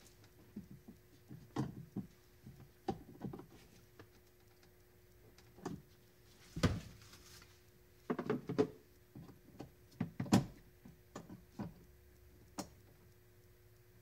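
Scattered clicks, taps and knocks of gloved hands and a tool working on a plastic automotive HVAC air box, loudest in two sharp knocks about two-thirds and three-quarters of the way through, over a faint steady hum.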